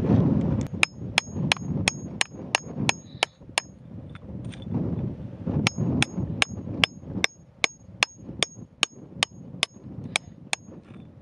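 A hammer striking a pointed steel chisel driven into rocky ground, each blow a sharp metallic clink with a short ring, about three a second. There are two runs of blows with a short pause between them.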